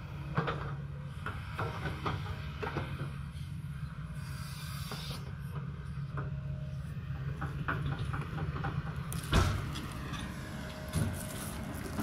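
Kobelco hydraulic excavator working: its diesel engine runs steadily under load while the boom and bucket move, with scattered metallic clanks and knocks. A loud thump about nine seconds in, with a second, smaller one a couple of seconds later.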